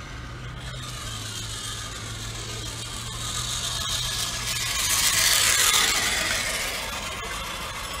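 Road traffic, with one vehicle passing that swells up to its loudest a little after halfway and then fades.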